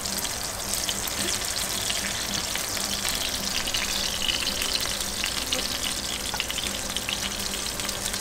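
Tuna pieces sizzling and crackling steadily in hot oil in a frying pan, browned on both sides.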